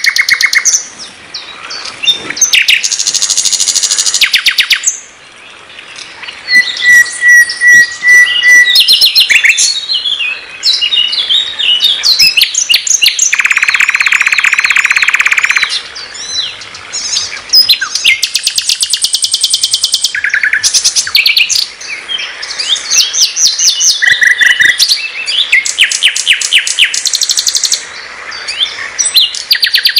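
Nightingale (sikatan londo) singing a loud, varied song: rapid trills and clicking runs, short whistled notes, and a long fast rattle a little past the middle, with brief pauses between phrases.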